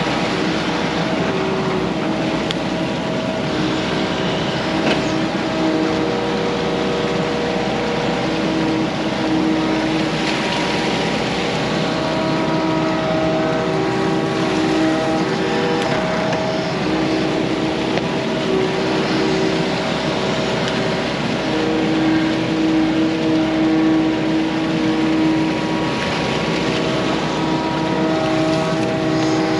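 Yanmar mini excavator's diesel engine running under hydraulic load while digging, its note stepping up and down as the arm and bucket work.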